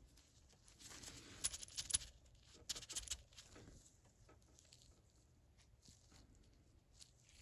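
Small steel ratchet parts clicking and clinking as they are handled and taken out of the head, in two short clusters of clicks followed by a few faint ticks.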